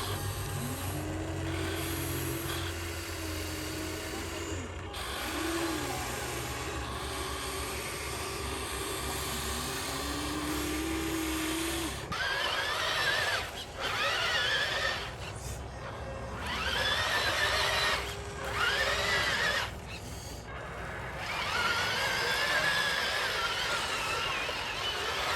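Small electric motors and gearboxes of a radio-controlled toy construction machine whining, the pitch rising and falling as the controls are worked. The whine is low for about the first twelve seconds, then turns to a higher whine that swings up and down in arcs with short pauses.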